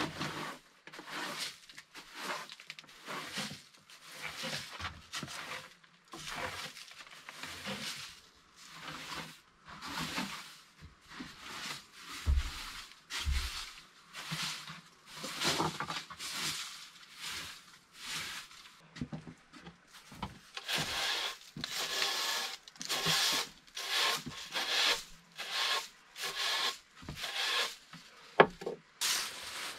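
A broom sweeping a wooden plank floor: repeated swishing strokes of the bristles over the boards, coming a little faster in the second half. One sharp knock near the end.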